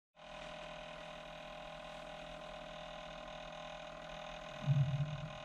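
Steady electronic hum made of many evenly spaced tones, with a louder low rumble joining about four and a half seconds in.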